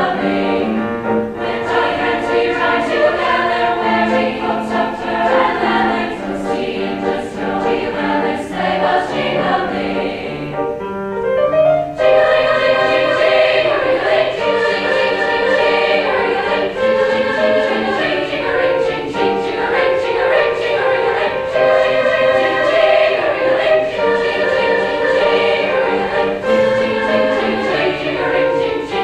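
A choir singing with music. There is a brief lull about eleven seconds in, then the singing swells again.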